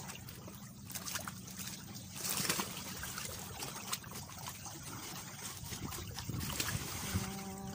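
Shallow seawater lapping and trickling among rocks in small irregular splashes, with a louder wash of water about two and a half seconds in.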